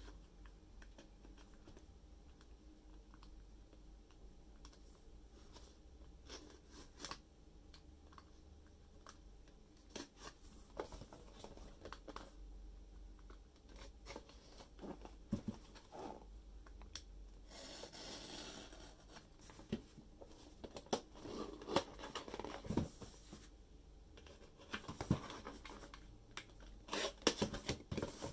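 Hands opening the cardboard box and plastic packaging of a Q posket figure. There are scattered clicks and scratches, a longer rustling stretch about two-thirds of the way in, and a quick cluster of sharper clicks near the end.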